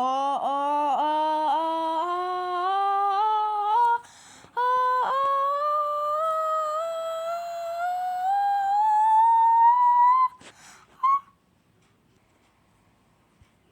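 A drawn-out, exaggerated sneeze. It opens with a repeated "ah-ah-ah" buildup, about two pulses a second, climbing in pitch. After a brief break it becomes one long rising "aah" that ends very high. A short, sharp sneeze burst follows about ten seconds in.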